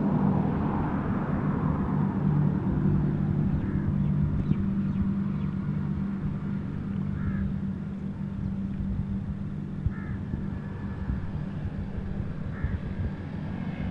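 A steady low machine hum, with a crow cawing about four times, a few seconds apart.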